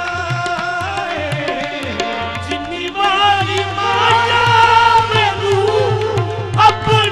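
Qawwali music: a singer over a hand-drum beat and held instrumental notes, the singing growing louder about halfway through.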